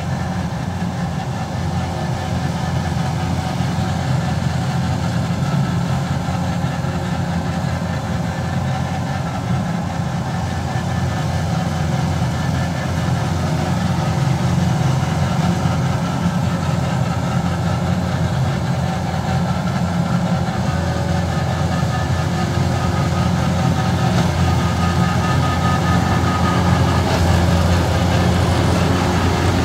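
Rice combine harvester's diesel engine running steadily while the machine works through deep, waterlogged mud. It grows a little louder over the last several seconds.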